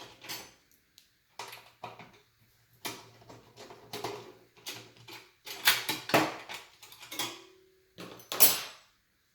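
A computer case and its metal parts being handled: a run of clicks, scrapes and metallic clinks, loudest about six seconds in and again near the end, with a brief ringing note just after seven seconds.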